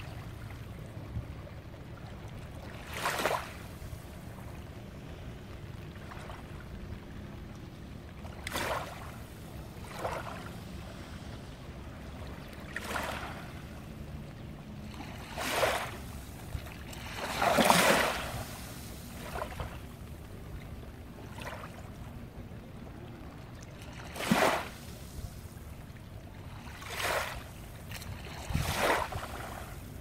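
Small waves lapping and splashing gently on a shallow sandy shore with basalt rocks, each swelling and fading within about a second, every two to three seconds, the biggest a little after the middle. A steady low rumble of the sea lies underneath.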